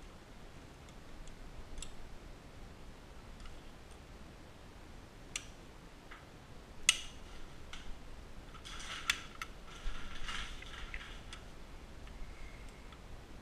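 Scattered mechanical clicks and clacks from a Dillon SL 900 shotgun-shell reloading press being worked by hand. There is one sharp clack about seven seconds in and a busier run of clatter a couple of seconds later.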